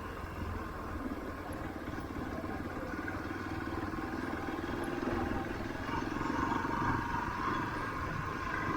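Motor vehicle engine running steadily while riding along a street, with a faint steady tone in the hum.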